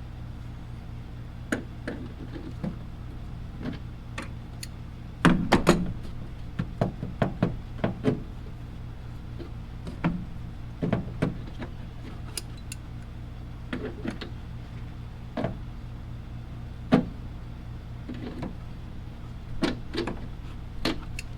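Scattered clicks and knocks of a small socket wrench and tools working the 8 mm tail-light nuts, with a few quick runs of clicks, over a steady low hum.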